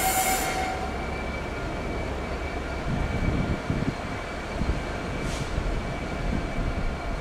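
Class 66 diesel locomotive's two-stroke V12 engine running at low power as it moves slowly at the head of a train of wagons, a steady low rumble with a few low thumps about three seconds in. A high squeal dies away within the first second.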